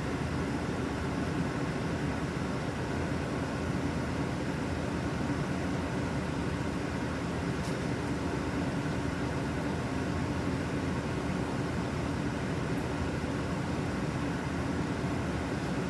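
City bus driving at a steady pace: engine and drivetrain running with an even low drone and road noise, no marked changes in speed.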